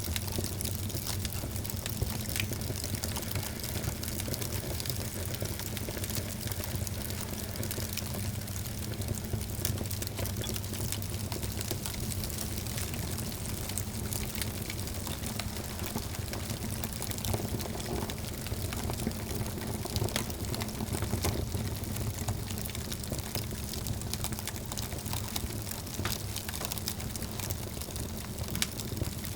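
Wood fire burning in a fireplace, crackling with dense, irregular small pops and snaps over a steady low rumble.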